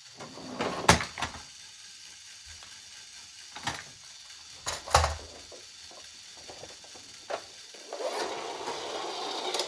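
Scattered sharp plastic clicks and knocks of toys being handled, then a small toy motor starting to whir steadily about eight seconds in.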